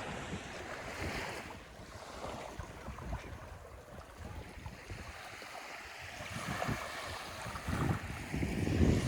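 Waves washing onto a beach, with wind buffeting the microphone in gusts that are strongest near the end.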